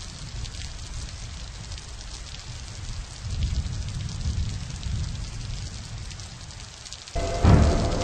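Steady rain: a dense patter of drops over a low rumble, which swells a little about three seconds in. Near the end a sudden loud burst of sound breaks in over it.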